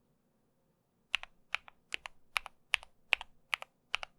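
A mechanical keyboard with cherry-profile ABS keycaps being typed on in a slow, even rhythm. Each of about eight keystrokes is a sharp pair of clicks as the key bottoms out and springs back, starting about a second in.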